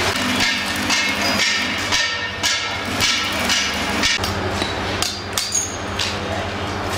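Hammer blows ringing on steel, about two a second and irregular, over a steady low electrical hum.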